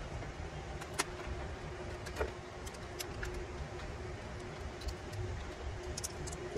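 Scattered light clicks and taps of hands handling the plastic casing and parts of an opened laptop, over a low steady rumble and faint hum.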